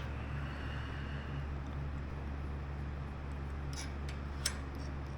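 Steady low hum with a few sharp metal clinks, two of them close together near the end, as silverware pieces are handled in a hand-operated metal bender.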